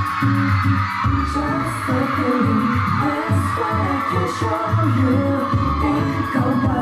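Pop music playing with a steady bass beat and a male singing voice: a K-pop ballad-style stage performance.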